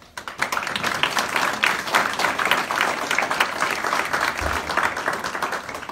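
Audience applauding: many people clapping at once, starting suddenly and dying away near the end.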